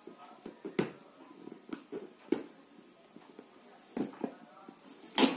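Packing tape being picked at and peeled off a small cardboard box by hand, giving scattered short scratches and rips against the cardboard, the loudest near the end.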